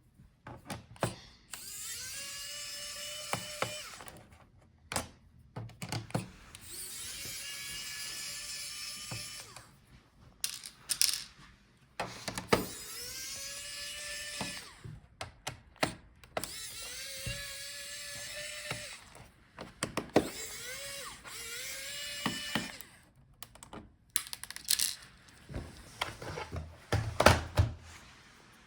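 A Phillips screwdriver backing out a laptop's bottom-case screws. It makes about five whirring runs of a couple of seconds each, rising in pitch, with clicks and taps between them as screws come free.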